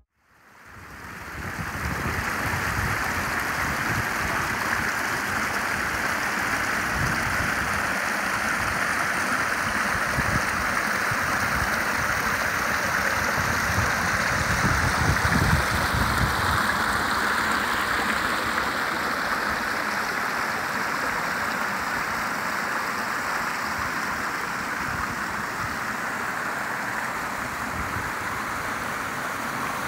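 Creek water running and splashing over a low rock ledge in small cascades: a steady rushing that fades in over the first couple of seconds.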